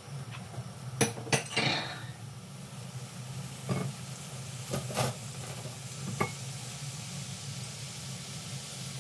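Sugar heating in a black frying pan on a glass-top stove, with a faint steady sizzle over a low hum. A few sharp metal clinks and knocks come in the first six seconds, two of them ringing briefly.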